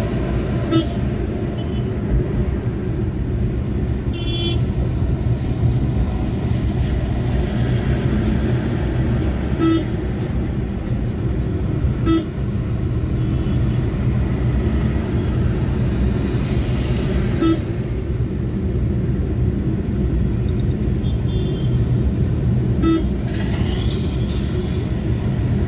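Steady road and engine rumble heard from inside a moving car in traffic. Short vehicle horn toots sound every few seconds, about half a dozen in all.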